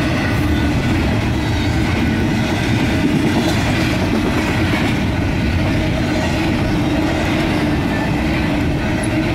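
Union Pacific freight train's double-stack container cars rolling past at speed: a steady, loud rumble of steel wheels on the rails with some clickety-clack.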